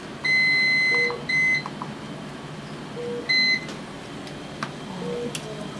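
Electronic beeps from hospital equipment: one long high beep, then two short ones about a quarter of a second and two seconds later. A fainter low beep repeats about every two seconds.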